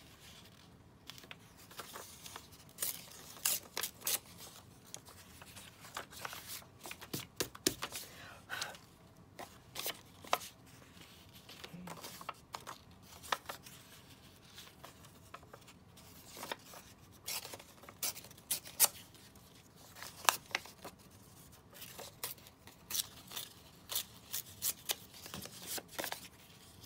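Paper being cut with scissors and handled on a craft desk: irregular short snips, clicks and rustles throughout.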